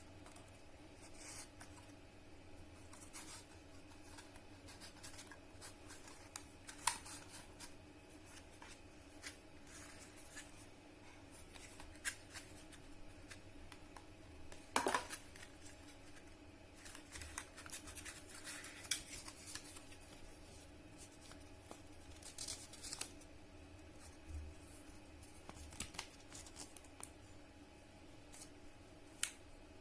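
Packaging being handled and opened by hand: scattered clicks, scratches and short rustles, with a faint steady hum underneath.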